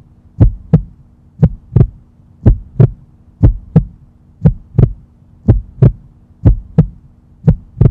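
A heartbeat: pairs of dull low thumps, lub-dub, about once a second, over a faint steady hum.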